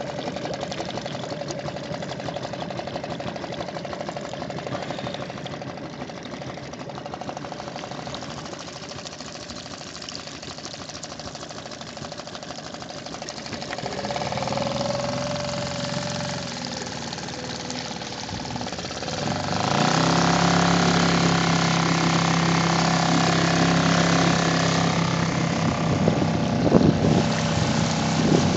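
Suzuki 2.5 hp outboard motor running at low speed with a fast, even beat, then throttled up about 14 seconds in and again at about 20 seconds, settling into a louder steady run.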